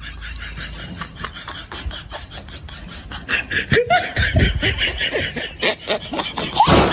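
Laughter, getting louder about three seconds in, over a run of quick clicking and scraping noises.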